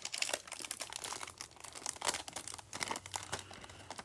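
Clear plastic wrapper of a trading-card pack crinkling in irregular crackles as it is pulled open and worked off a stack of cards.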